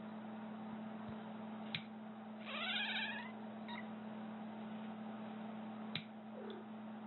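Two sharp snips of fingernail clippers, about four seconds apart, over a steady low hum. Right after the first snip a cat lets out a short, loud, rising cry, its reaction to the clipping, with a faint shorter call after the second snip.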